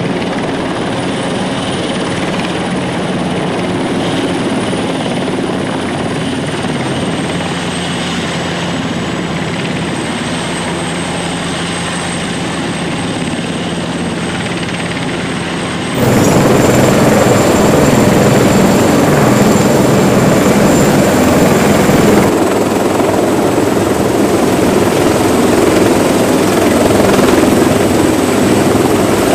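Helicopter turbine whine and rotor noise as a medium twin-turbine helicopter hovers and sets down on a ship's helicopter deck. About 16 seconds in, the sound jumps to a louder, closer rotor and engine noise of a CH-53 heavy-lift helicopter hovering just above a flight deck.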